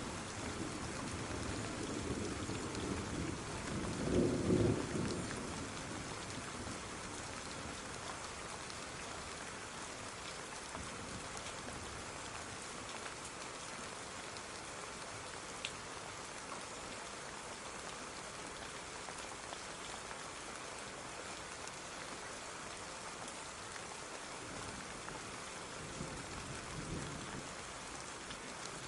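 Steady rain falling with an even hiss. A low rumble of thunder swells in the first few seconds, loudest about four seconds in, and a fainter rumble comes near the end.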